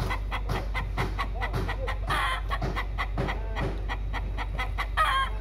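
Domestic rooster and hen clucking and calling during courtship: a sharp call about two seconds in and a louder one near the end, with lower clucks between. A rapid, even ticking runs underneath.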